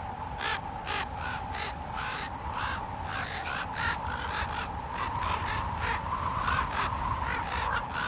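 Crows cawing over and over in short, harsh calls, about two or three a second, over a steady rushing background.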